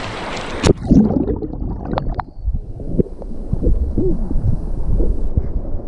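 Rushing water of a small rocky stream, cut off by a sharp knock under a second in; after it, loud muffled rumbling with scattered thumps and wavering low tones, like wind or handling on the microphone.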